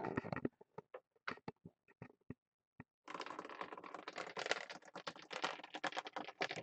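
Typing on a computer keyboard: a few scattered keystrokes, then a fast, continuous run of typing starting about three seconds in.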